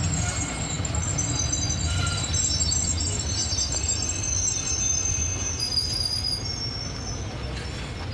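Passenger train coaches rolling slowly past on the track: a steady low rumble with thin, high-pitched wheel squeal coming and going, easing slightly near the end.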